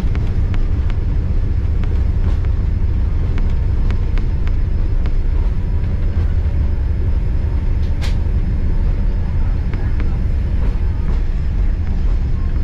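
Steady low rumble of a Boeing 787 Dreamliner airliner, with a single sharp click about eight seconds in.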